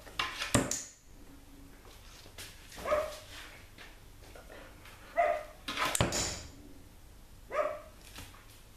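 Australian Shepherd puppy barking: three short barks at an even pace, about two and a half seconds apart. Two sharp knocks come about half a second in and near six seconds.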